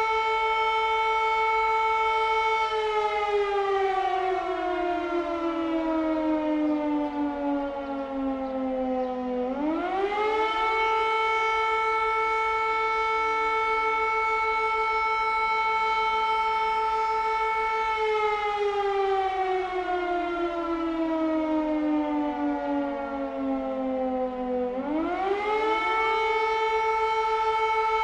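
Air raid siren wailing: a steady high tone is held for several seconds, then slowly falls in pitch for about seven seconds and quickly swoops back up to the held tone, twice over.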